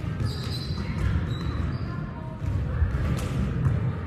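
Volleyballs being struck and bouncing on a hardwood gym floor during warm-up: several sharp slaps and bounces over a steady hall din, the loudest about three seconds in, ringing in the large gym.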